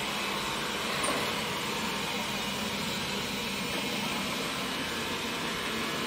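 Xiaomi Mi Robot Vacuum running: a steady whir of its suction fan and brushes with a low hum, and a faint knock about a second in.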